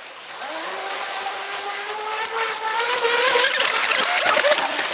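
Brushless electric motor of an RC racing catamaran whining as it runs across choppy water. Its pitch rises steadily and it grows louder over about three seconds, then the whine wavers near the end as the hull skips over the waves, with a hiss of spray underneath.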